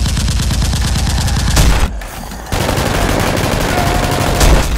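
Rapid automatic-gunfire sound effect, dubbed over Nerf blaster shooting: two long bursts of fast repeated shots, with a short break about two seconds in.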